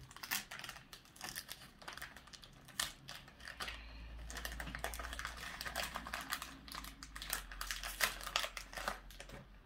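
Foil wrapper of a Pokémon card booster pack being torn open and crinkled by hand, a dense run of quick small crackles and rustles.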